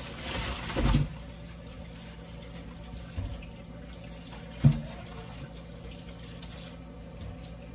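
Kitchen tap running in a short rush for about a second, then shut off. A small thump follows, then a sharp knock about four and a half seconds in.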